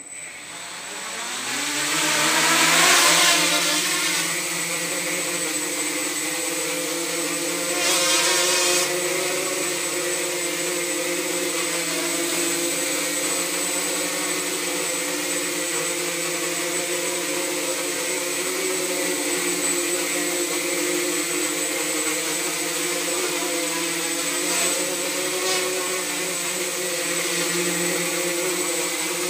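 Mini quadcopter's four 10 g brushless motors and propellers spinning up with a rising whine over the first two seconds. They then settle into a steady buzzing hum as the quad flies, with a brief louder surge about eight seconds in.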